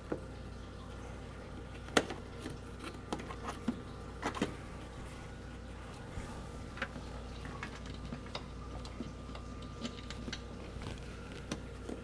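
Irregular plastic clicks and small metal taps as a LiftMaster 888LM keypad's housing is pressed back onto its wall mount and screwed in with a screwdriver; the sharpest click comes about two seconds in, with a few more just after four seconds. A steady low hum lies underneath.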